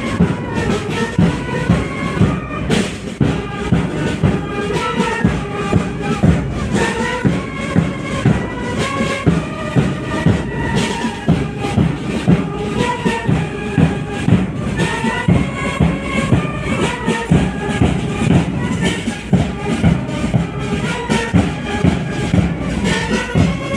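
Military band playing a march: a wind melody over a steady drum beat.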